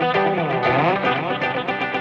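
Background music led by an effects-laden electric guitar playing a wavering melodic line over a steady bass note.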